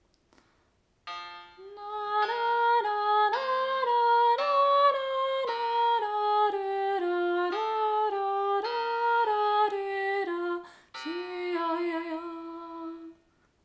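A woman singing a wordless improvised melody in quick running figures, stepping up and down through many short notes, meant to build in dissonances against a bass line. It starts about a second in, breaks off briefly near 11 s, and goes on with a shorter, lower phrase.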